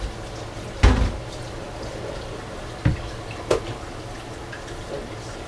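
Kitchen clatter at a sink: three short knocks, the loudest about a second in, over a low steady hum.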